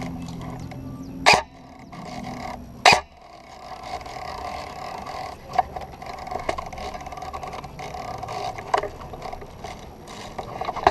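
Two loud, sharp airsoft gun shots about a second and a half apart, then several fainter single pops and clicks over a steady background hiss.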